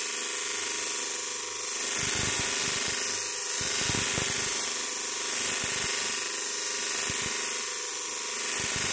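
Steel axe head ground against the spinning wheel of a bench grinder: a steady, hissy grinding rasp over the grinder's motor, with the pressure on the wheel wavering from about two seconds in.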